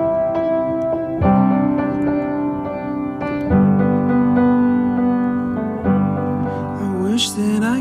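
Song intro on keyboard: sustained chords struck afresh about every two to two and a half seconds, with a rising sliding tone near the end.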